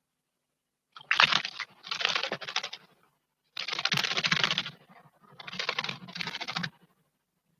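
A small bird bathing in a stone garden water basin: four bursts of rapid splashing and wing-fluttering, each about a second long, with short pauses between.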